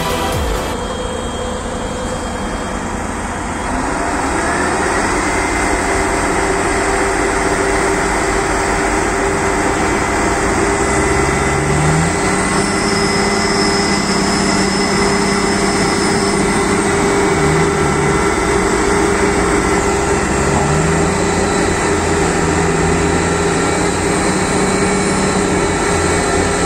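Heavy diesel engines of a CLAAS Lexion 760 combine harvester and a New Holland tractor running under load while trying to pull the combine out of the mud. The engines rev up about four seconds in, and a second engine note climbs around twelve seconds in, then dips and recovers a few times.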